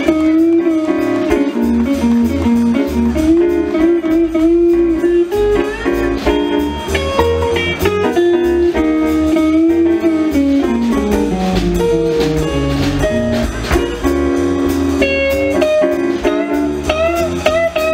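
Small student jazz band playing live: trombone, alto saxophone, clarinet and trumpet over guitars and a drum kit. A long falling line runs through the middle of the passage.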